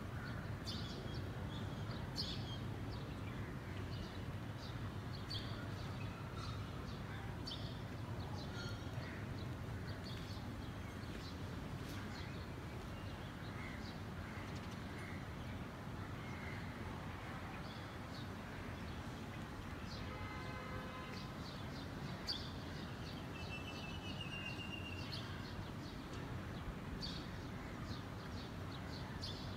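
Steady low hum of distant city ambience with small birds chirping briefly and repeatedly throughout, including a short rapid trill late on.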